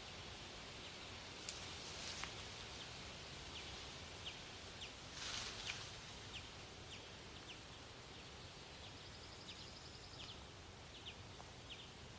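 Quiet outdoor ambience with faint, short high chirps repeating about every half second, and a brief rustle about five seconds in.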